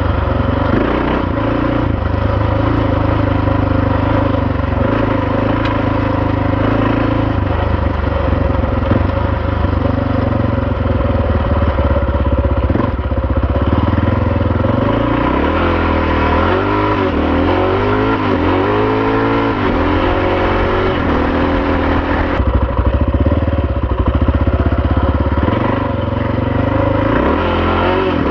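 Honda XR650R's single-cylinder four-stroke engine running while the motorcycle is ridden, steady for the first half. From about the middle the revs rise and fall several times as the throttle is worked, and again briefly near the end.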